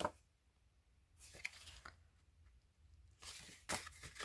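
Faint rustling and scraping of stiff paper journaling cards being handled and slid against each other, in a few short bursts, the strongest near the end.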